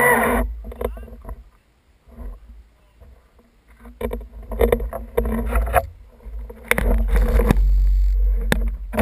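Chainsaw running at full throttle cuts off about half a second in. Then come irregular sharp cracks and snaps with low rumbling thuds, heaviest around four to six seconds in and again about seven seconds in, as wood and branches break.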